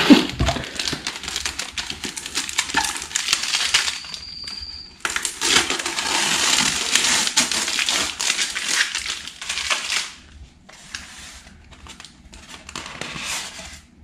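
Clear packing tape being peeled off the edges of a styrofoam shipping cooler: a long crackling rip broken by short pauses, softer and more broken up after about ten seconds.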